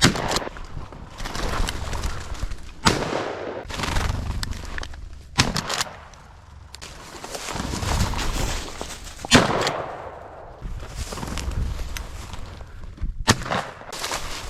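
Shotgun shots, about five sharp reports a few seconds apart, each with a brief echo, and a rough rushing noise between them.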